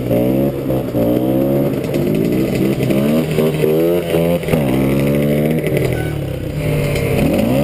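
Husqvarna TE 125 dirt bike's single-cylinder engine revving hard, its pitch climbing and dropping again and again as wheelies are pulled.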